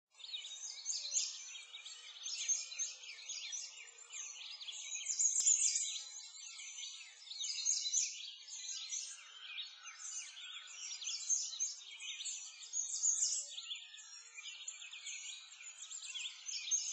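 Many small birds chirping and twittering together, a dense chorus of short high calls that rises and falls in loudness.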